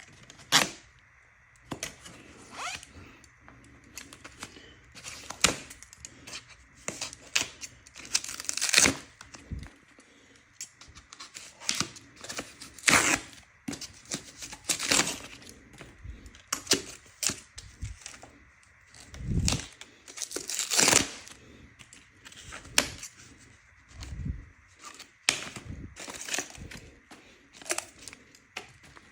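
Packing material being torn and crinkled off a boxed e-bike: irregular tearing and rustling sounds, some half a second long, with a couple of dull thuds about two-thirds of the way through.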